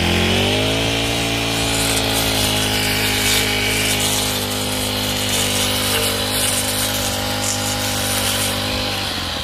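Petrol brush cutter running at low RPM, its engine speeding up a little in the first second and then held steady while the blade cuts through weeds. Near the end the throttle is let off and the engine note drops away.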